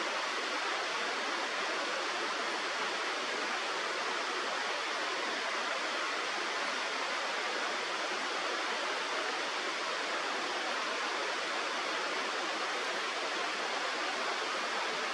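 River water rushing steadily, an even hiss with no birdcall or other sound standing out.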